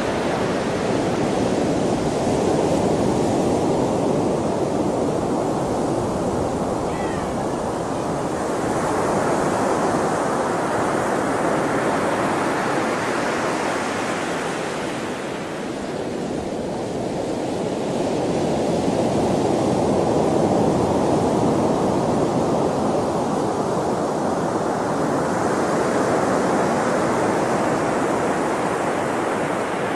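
Sea waves breaking and washing on the shore, a continuous rush of surf that swells and falls back every several seconds.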